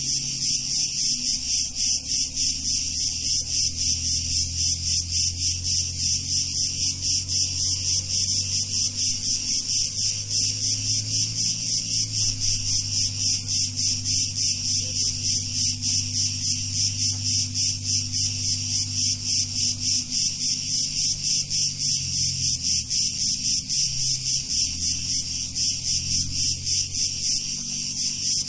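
A chorus of cicadas buzzing: a dense, high, pulsing drone of about four pulses a second that never lets up. Under it runs a quieter low hum of sustained tones that shift every few seconds.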